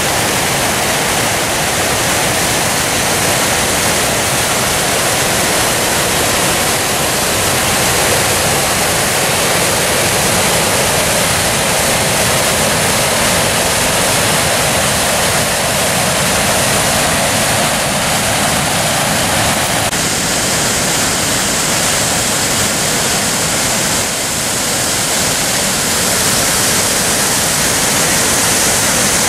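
The Maskinongé River's falls at Chutes Ste-Ursule: heavy white water pouring over rock ledges in a loud, steady rush.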